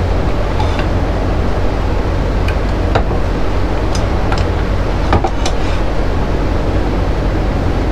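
Wood lathe running steadily with a low hum, with a few light clicks scattered through it.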